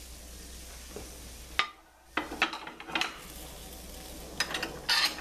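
Cream sauce simmering in a stainless steel skillet, with a few light clinks and scrapes of metal utensils against the pan, mostly around the middle and near the end.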